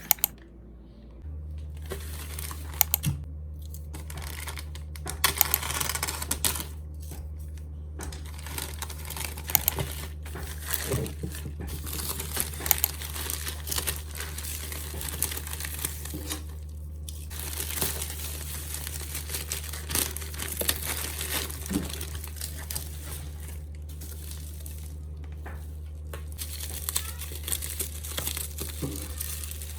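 Parcel packaging being handled and unwrapped: irregular crinkling, rustling and tearing, with small clicks and knocks. A steady low hum runs underneath from about a second in.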